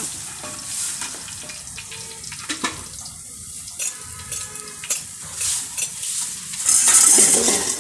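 Achappam batter deep-frying in hot oil in a bell-metal uruli: a steady sizzle with a few sharp clinks of the metal mould. The sizzle swells loudly near the end.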